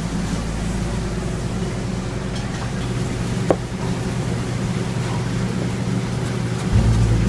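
Steady low hum and hiss of a commercial kitchen, with a single short clink about three and a half seconds in.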